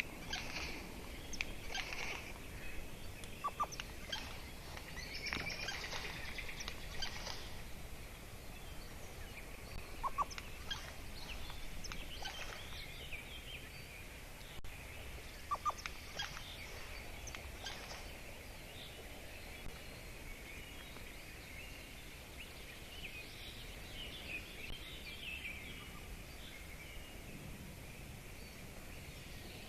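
Wild birds calling: scattered short chirps and calls, a few brief clear whistled notes among them, over a steady outdoor hiss. The calls come thickest in the first half and thin out after about eighteen seconds.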